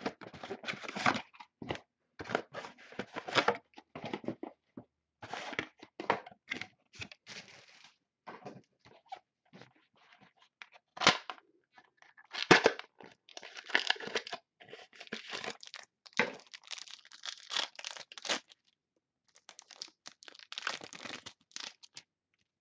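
Trading-card box and packs of 2012 Panini Absolute football cards being torn open and the cards handled: irregular tearing and crinkling of the wrappers and cardboard, with a couple of sharp snaps about halfway through.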